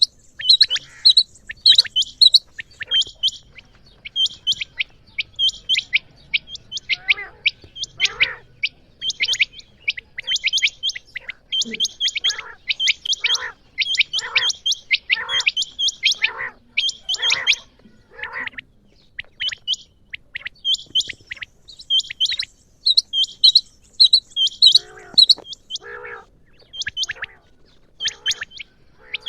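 Female common quail calling: runs of short, high chirps repeated several times a second, with lower, coarser calls mixed in through the middle and again near the end.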